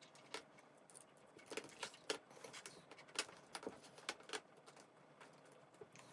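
Faint, irregular clicks and small taps, about a dozen in the space of a few seconds, from electrical wires and small parts being handled while connections are made in a junction box.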